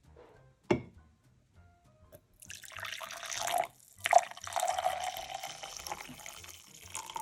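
Coffee being poured into a mug: a steady liquid stream that breaks off briefly about halfway and then goes on. A single clack comes first, under a second in.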